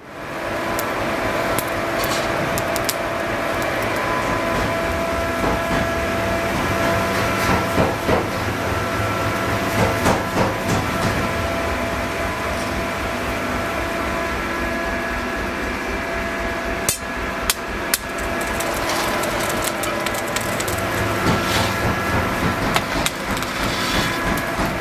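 Metalworking workshop noise: repeated hammer strikes and metal clinks over a steady machine hum.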